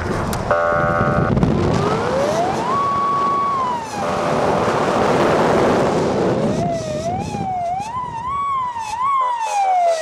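Police car siren. About half a second in a short steady horn tone sounds, then a wail rises, holds and drops away. After a stretch of vehicle noise, quick up-and-down yelps climb in steps, and a long falling wind-down begins near the end.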